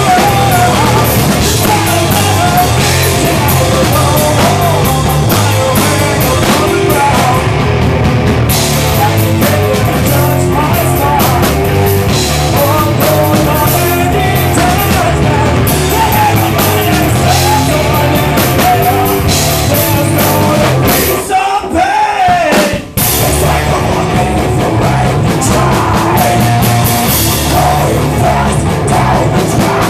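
Heavy stoner/doom metal band playing live: electric guitar, bass and drums at full volume, with a female singer's voice over them. The band cuts out briefly about two-thirds of the way through, then comes back in.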